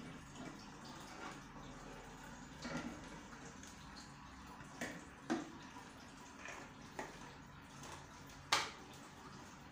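Toilet cleaner being squeezed from a plastic bottle around the inside of a toilet bowl rim, the liquid faintly squirting and splashing, with a few small clicks and knocks. A sharper knock near the end is the loudest sound.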